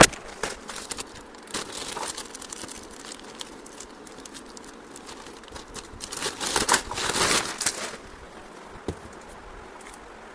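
Crinkling and rustling handling noise, with a sharp click at the start and a louder crinkly stretch about six to eight seconds in.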